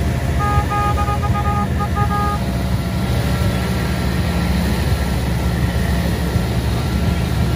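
Motorboat engine running steadily under way, with water rushing in the churning wake. From about half a second in, a horn sounds a quick string of short toots for about two seconds.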